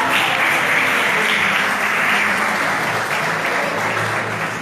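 A group of people applauding, steady clapping throughout.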